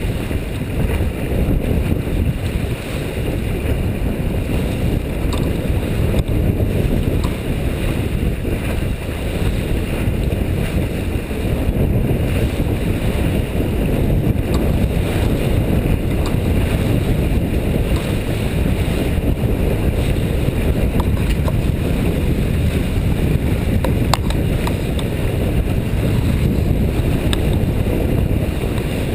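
Wind rumbling on the microphone with water rushing along the hull of a Paceship PY 26 sailboat under sail, a steady low noise.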